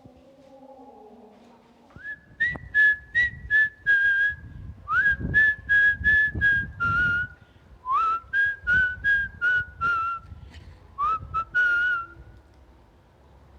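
Four runs of short, clear whistled notes, about four a second, beginning about two seconds in. Each note starts with a quick upward slide, and the pitch settles a little lower through each run. Low rumbling noise sits underneath.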